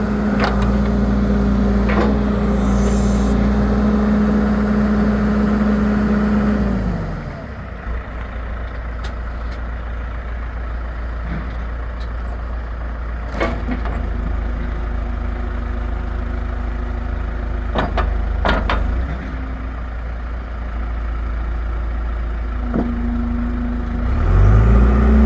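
John Deere 410G backhoe loader's diesel engine running at raised speed, then throttled down to a lower idle about seven seconds in, with a few sharp knocks during the idle. The engine speed rises again near the end.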